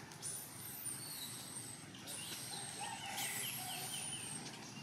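High, thin whistled calls from forest birds, with a short rapid trill of about seven notes a little after the middle.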